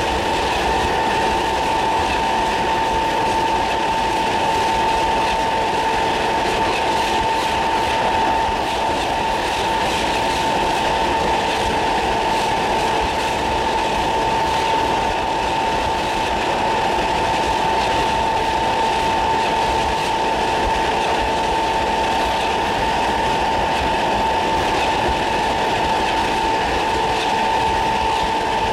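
British Rail Class 317 electric multiple unit under way, its GEC G315BZ traction motors giving a steady whine that holds one pitch, so the train is running at a constant speed. Under it is a continuous rumble of wheels on rail with a clickety-clack from the rail joints.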